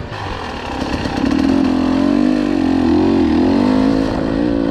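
Enduro dirt bike engine running hard under throttle, growing louder about a second in and then holding fairly steady revs with a slight waver in pitch.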